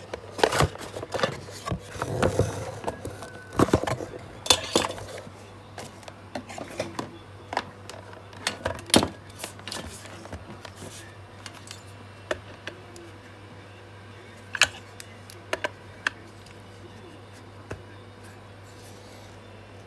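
Unboxing handling noise: a cardboard box being handled, then cords and plastic parts of a soldering station clicking and knocking on a wooden bench. The clicks are dense at first and thin out after about ten seconds, over a steady low hum.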